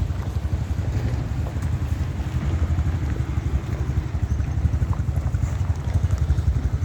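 Low, steady rumble of an off-road vehicle's engine and tyres driving over a bumpy dirt trail.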